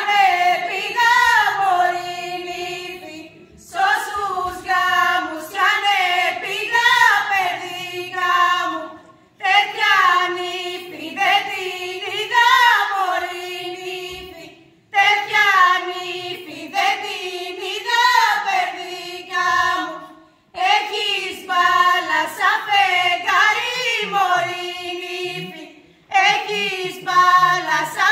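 A group of women singing an unaccompanied Epirote folk song, in phrases of about five seconds with a short break for breath between each.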